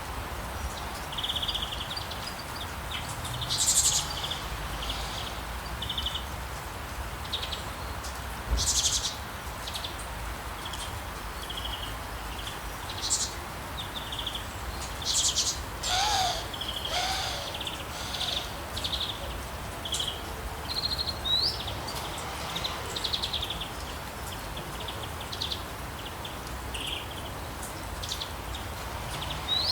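Songbirds chirping and trilling in many short, high calls scattered throughout, over a steady soft hiss. Around the middle, a lower call slides in pitch.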